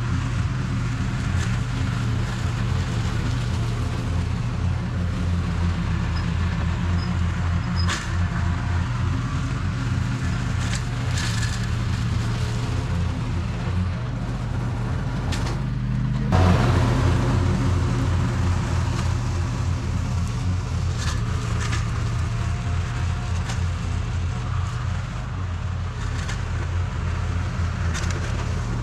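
Toro TimeCutter zero-turn mower running steadily under load while cutting grass, with a few sharp cracks scattered through.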